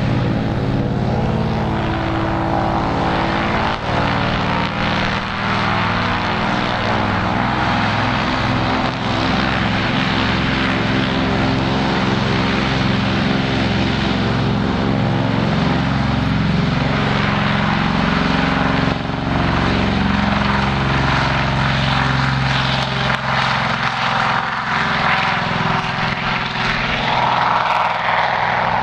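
Two Pratt & Whitney R-2000 Twin Wasp radial engines of a de Havilland Canada DHC-4 Caribou, with their propellers, running during the takeoff run, with the aircraft lifting off near the end. A loud, steady propeller drone whose tones shift and beat slightly against each other.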